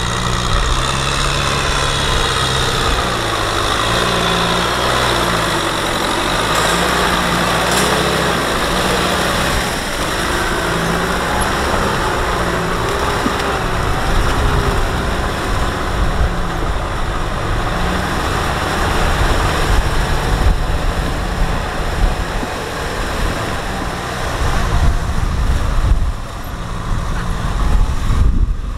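Kubota M6040SU tractor's diesel engine running under load in deep mud, its pitch rising and falling as the throttle changes, most clearly in the first ten seconds or so.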